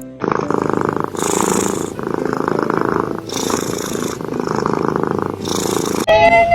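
Domestic cat purring loudly, close up, the purr rising and falling with each breath about once a second. Near the end it gives way to a steady high tone.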